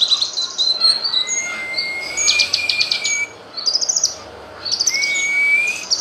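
Cucak kinoy songbird singing: rapid chattering trills, then two long whistles that slowly rise in pitch, with quick chattering notes over them.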